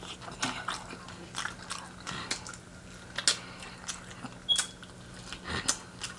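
Fried chicken being chewed close to the microphone: irregular sharp crackles and clicks of eating, with no talking.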